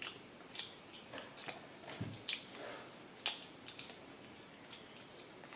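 Faint, scattered clicks and rustles of small plastic toy packaging being handled.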